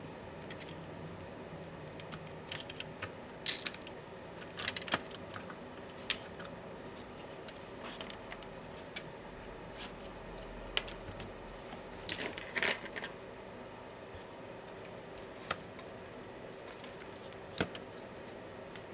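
Scattered small clicks and light metallic clatter of laptop parts, screws and tools being handled during disassembly, with the busiest bursts a few seconds in and again a little past the middle.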